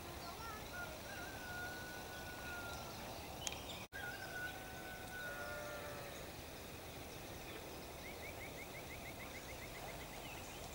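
Open-country ambience with a steady background hiss and distant animal and bird calls: a long, level, drawn-out call in the first few seconds, another just after a split-second dropout, then a fast trill of short rising chirps near the end.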